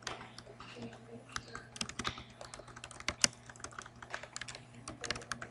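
Faint typing on a computer keyboard: irregular quick key clicks over a low steady hum.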